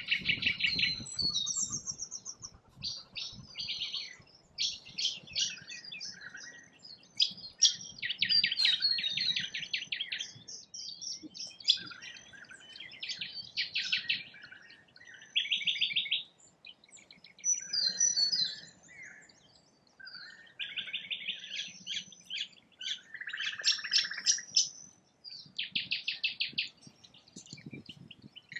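Wild birds calling, with bursts of fast chattering trills and sharp chirps, high-pitched, repeating every second or two and overlapping at times.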